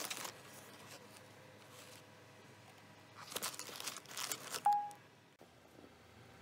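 Wrapping sheet and cardboard packaging crinkling and rustling as a camera is handled and lifted out of its box, in two bouts: one at the start and a longer one after about three seconds. A brief single tone sounds near the end of the second bout.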